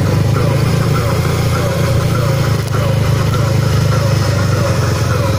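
Motorcycle engine running steadily while a stunt rider works the bike at low speed, with a crowd murmuring.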